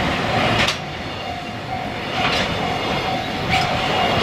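EF65 electric locomotive and its container wagons passing on the rails, with a steady rolling rumble of wheels and a few sharp wheel clacks.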